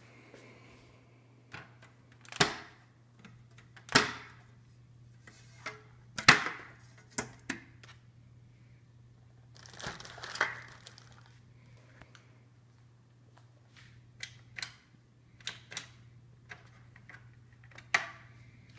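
Handling noise: irregular knocks and clicks, a few loud ones in the first seven seconds, a short rustle about ten seconds in, then lighter clicks, over a low steady hum.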